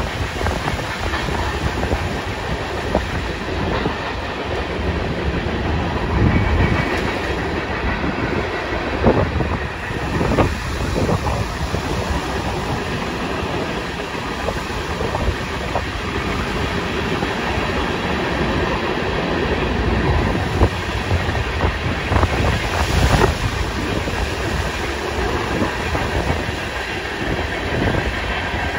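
Freight cars of a Union Pacific manifest train rolling past: a steady rumble of steel wheels on rail with clickety-clack over the joints and a few sharp knocks.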